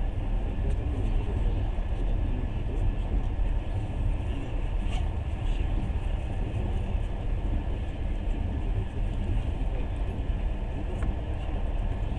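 Passenger train running along the rails, a steady low rumble of wheels and carriage heard from inside the car, with a couple of faint clicks.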